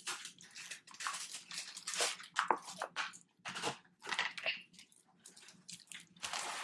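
Hands squeezing and pulling sponge slime in a container, giving a run of irregular wet squelching noises.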